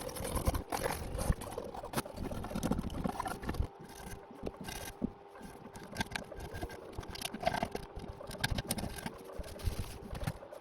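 Irregular scraping and small clicks of hand work cleaning old sealant off an aluminium oil pan flange, with a faint steady hum underneath.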